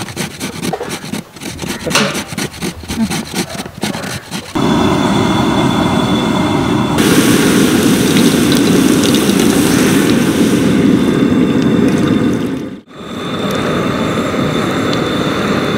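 Carrots rasped against a hand grater in quick scraping strokes. About four and a half seconds in, this gives way to a steady pour of milk splashing into a large metal pot, which breaks off briefly near the end and then resumes.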